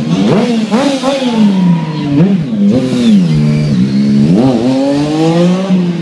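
Stunt motorcycle engine revving up and down several times in quick blips as the bike is ridden close by and then away.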